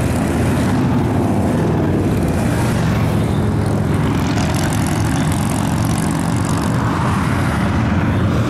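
A group of cruiser motorcycles riding past one after another, their engines running loud and steady at close range.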